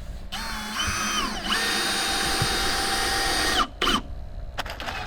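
Power drill running in a high whine that dips in pitch briefly and then holds steady for about two seconds before stopping sharply, with a short second burst just after.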